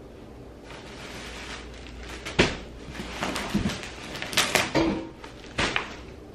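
Cardboard box and plastic wrapping rustling as packed furniture parts are lifted out, with a few sharp knocks and thumps about two and a half, four and a half and five and a half seconds in.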